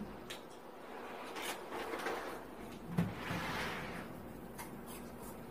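A large plastic popcorn bag rustling as a hand reaches in for popcorn, in two swells, with a single knock about three seconds in.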